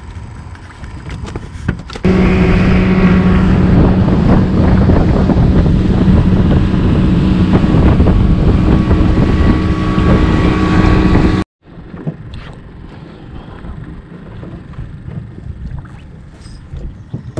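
A motorboat's engine running under way, a steady drone over loud rushing wind and water, which cuts off suddenly; quieter wind and water sounds follow.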